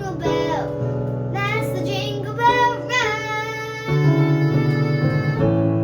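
A child singing a seasonal song over instrumental accompaniment, holding one long note for a couple of seconds about halfway through before the melody moves on.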